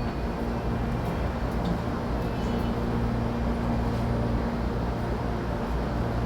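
Série 8500 electric train running, heard from inside the car: a steady low rumble with a constant hum.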